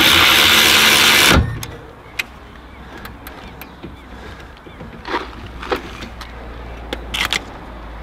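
Handheld power ratchet whirring for about a second and a half on a brake caliper slide-pin bolt, then stopping. After it a few sharp metal clicks follow from a wrench on the caliper bolts.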